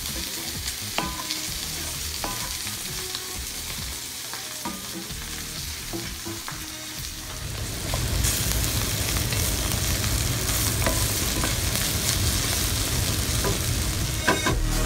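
Vegetables sautéing in a hot cast-iron skillet: a steady sizzle, with a wooden spoon knocking and scraping against the pan as they are stirred. The sound grows louder about halfway through, with a few sharp knocks near the end.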